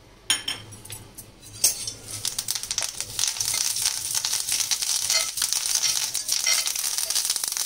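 Fresh curry leaves frying in a little hot oil in a cast-iron pan: a couple of light clicks, then from about two seconds in a steady, crackling sizzle as the leaves hit the oil.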